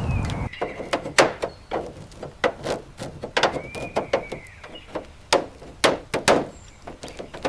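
Irregular sharp knocks and clanks of hand tools at work. A short squeal rises and falls at the start and again near the middle.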